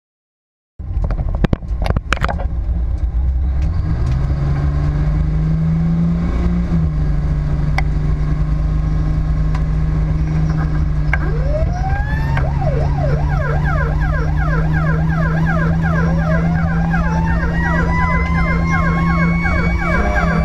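Emergency vehicle siren sounding while the vehicle drives: about a third of the way in, a siren winds up in a rising wail, joined by a rapid back-and-forth yelp, and a second rising wail comes in later. Underneath is a loud, steady low rumble of the engine and road.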